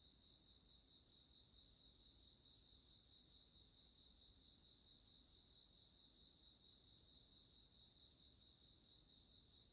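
Near silence with faint, steady high-pitched chirring of insects, pulsing evenly.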